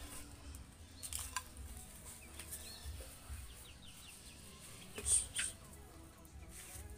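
Dry rice husks rustling as they are poured and spread by hand in a cement pot, with faint bird chirps. A brief sharp high sound about five seconds in is the loudest moment.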